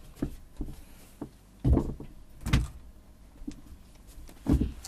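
Clunks and knocks of an electronic drum kit's metal rack and clamp hardware being handled: a few light taps, then three heavy thumps, about a second and a half in, about two and a half seconds in, and near the end.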